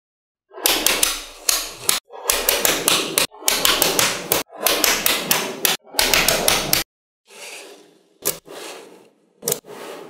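Small magnetic balls clicking and clattering against each other in five dense bursts of about a second each, followed by softer rustling and a couple of sharp single clicks near the end.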